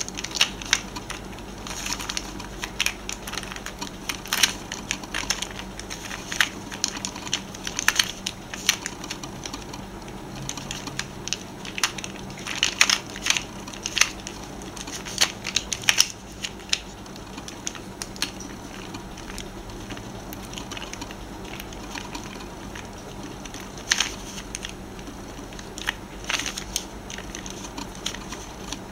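Plastic Pyraminx puzzle being twisted by hand: irregular clicks and clacks as its layers and tips turn. The clicks come thickest a little before the middle, thin out for several seconds, then pick up again near the end.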